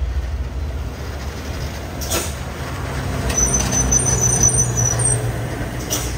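Heavy diesel truck engine running hard under load, its note growing stronger midway, with a thin high whine over the same stretch. There are short sharp hisses, typical of air brakes, about two seconds in and near the end.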